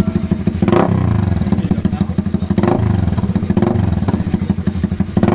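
Honda CB150R single-cylinder engine running through an aftermarket SC Project exhaust: a steady pulsing idle with a few brief throttle blips.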